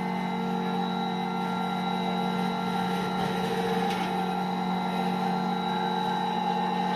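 Laboratory rotary dryer prototype running, giving a steady machine hum with a few fixed tones.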